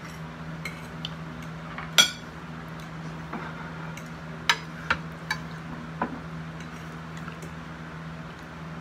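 A metal fork clinking and scraping against a ceramic dinner plate as chicken is cut and picked up. There are a handful of separate clinks, the loudest about two seconds in and a quick cluster around the middle, over a steady low hum.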